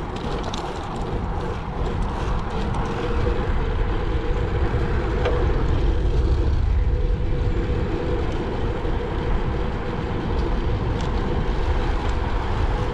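Wind buffeting a chest-mounted action camera's microphone while riding a bicycle, a heavy rumble, over a steady drone of traffic.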